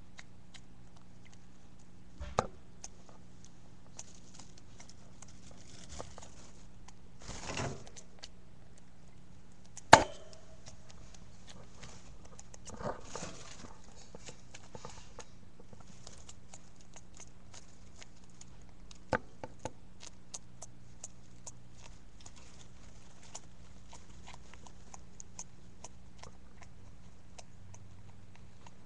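Pet hamster sneezing now and then, which the owner links to an injury that made her bleed. It comes as a few short, sudden noises spread out, the loudest a sharp click about ten seconds in, amid faint patter and ticks of the hamster moving about. A steady low hum runs underneath.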